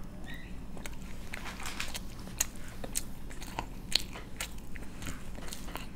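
A person biting into and chewing a mouthful of burger, with irregular sharp mouth clicks several times a second.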